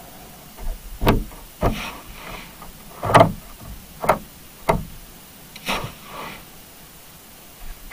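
A series of irregular sharp knocks and thuds, about six in all, each with a short ringing tail; the loudest comes a little over three seconds in.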